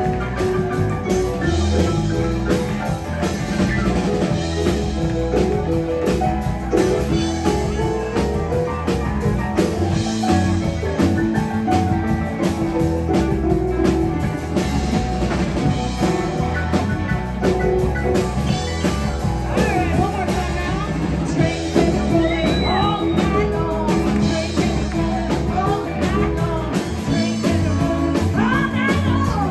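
Live rock-and-roll band playing at full volume: electric guitar, keyboards and a driving drum-kit beat. A woman's singing voice comes in over the band in the later part.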